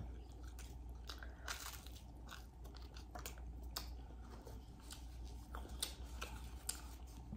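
Quiet close-miked chewing of a mouthful of baked spaghetti, with scattered small mouth clicks.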